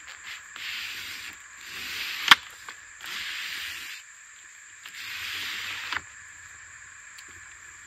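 Pleated blind of a Remis RV blind-and-screen combo being slid back and forth along its frame by hand, a freshly restrung blind tested for tracking. Three swishing, rustling strokes, two of them ending in a sharp click as the blind's bar meets the frame.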